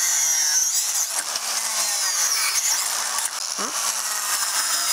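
Cordless angle grinder fitted with a carbide-tipped multi-tooth saw blade, running at full speed and cutting through a wooden board. A high whine sits over the rasp of the cut.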